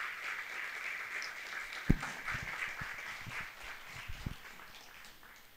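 Audience applauding, the clapping dying away over the last second or so. A single thump sounds about two seconds in, with a few soft knocks after it.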